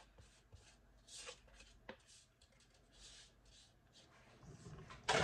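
Faint, soft scraping as a silicone spatula scrapes powdered sugar out of a plastic measuring cup into a mixing bowl, with a light click about two seconds in.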